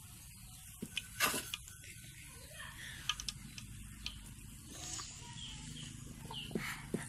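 Battered mushroom pieces sizzling faintly in hot oil in an aluminium pan as a wire-mesh skimmer lifts them out, with a few sharp clicks of the skimmer against the pan.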